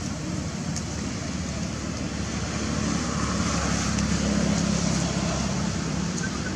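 Steady outdoor traffic noise, with a motor vehicle's engine rumbling louder through the middle as it passes and then fading.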